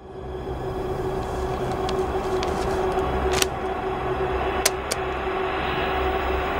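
Low rumbling drone of suspense underscore with one steady held tone, fading in from silence at the start. A sharp click comes about three and a half seconds in and a quick pair of clicks just under five seconds in.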